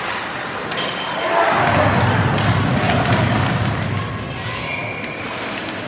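Ice hockey rink play: sharp clacks of sticks and puck, with a louder low, rumbling thud-like stretch from about a second and a half in to about four seconds.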